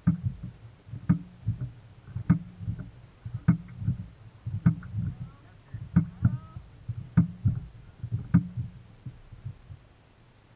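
Small waves slapping against the hull of a fishing boat: a hollow knock about every second, fading out near the end.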